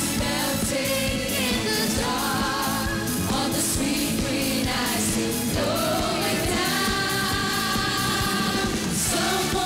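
Women singing a pop song into microphones over an upbeat backing track with a steady beat.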